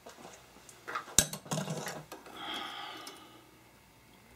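A few sharp metallic clicks and light clatter about a second in, then a soft scraping rustle, as hand tools are handled at the lathe chuck.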